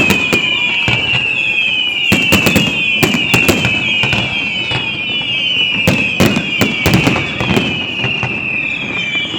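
Fireworks going off: clusters of sharp bangs and crackles, over a continuous high whistling tone that falls in pitch about twice a second.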